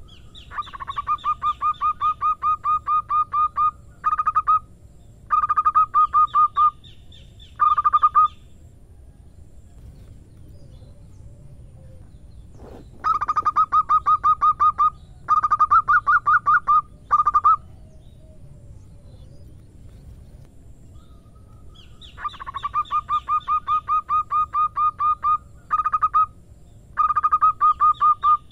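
Zebra dove (perkutut) singing its staccato cooing song three times. Each phrase is a fast run of clipped notes followed by two or three short bursts.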